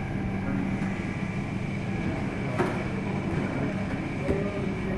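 Steady machine hum of kitchen equipment, with two short clinks of utensils against the stainless steel topping trays, about two and a half and four seconds in.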